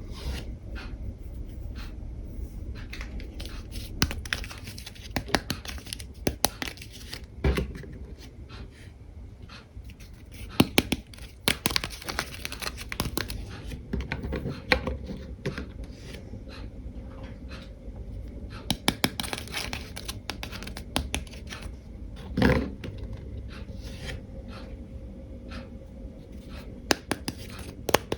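Hands handling small plastic toys and packaging: rustling, crinkling and tearing, with scattered sharp clicks and taps.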